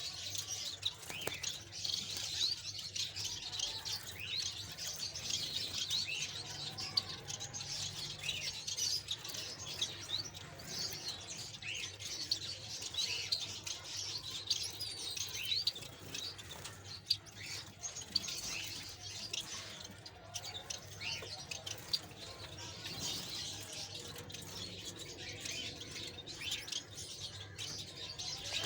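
Many small birds chirping together, a dense stream of short high chirps overlapping throughout.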